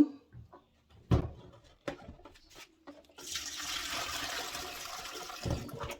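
A few knocks, then tap water running steadily into a bowl of soaked black-eyed beans for their last rinse, starting about three seconds in.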